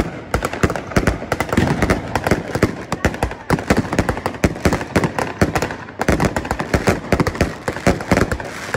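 Aerial fireworks display: shells bursting overhead in a rapid, near-continuous barrage of bangs and crackling, many reports a second.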